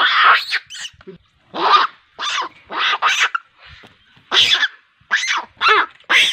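An animal calling loudly and repeatedly, about a dozen short calls at roughly two a second, each one shifting in pitch.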